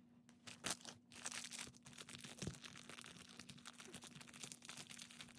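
Thin plastic packaging crinkling and tearing as a small toy figure is worked out of its wrapper, with a sharp knock just under a second in and a dull thump about halfway.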